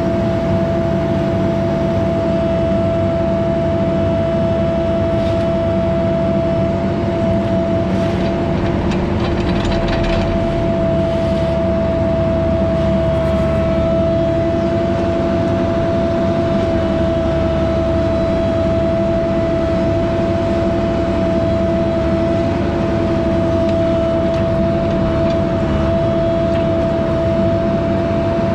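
Diesel engine of a mini excavator running steadily at high revs, a low rumble under a constant whine that holds one pitch throughout.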